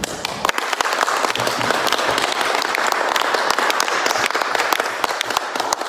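Audience applauding, many hands clapping, beginning right after a talk ends and thinning out near the end.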